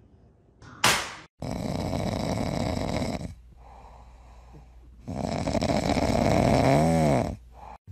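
A short sharp thump, then a dog lying on its back asleep and snoring: two long snores a couple of seconds each, the second ending in a wavering tone.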